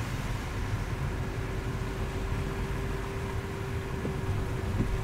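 Car driving on a wet, slushy road: a steady low rumble of engine and tyres, with a faint steady hum from about half a second in and a couple of light ticks near the end.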